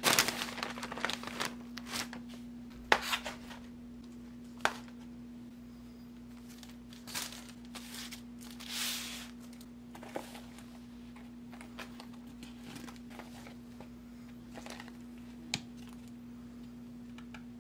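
Paper food wrappers crinkling and cardboard burger boxes being handled and opened, in scattered rustles and sharp clicks that are busiest in the first couple of seconds. A steady low hum runs underneath.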